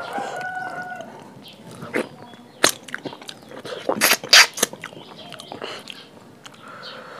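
Close-up eating sounds: a few sharp, loud crunching bites with chewing in between, the loudest about two and a half and four seconds in. A short animal call, fitting the chickens heard around it, sounds at the start.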